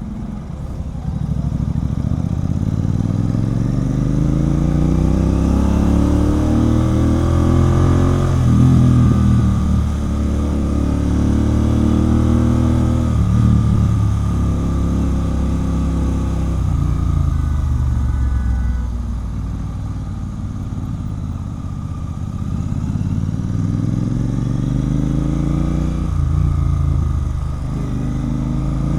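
Royal Enfield Continental GT 650's parallel-twin engine through a Red Rooster aftermarket exhaust, pulling up through the gears: the pitch climbs, drops at each shift and climbs again. Midway it winds down as the bike slows, then picks up again near the end.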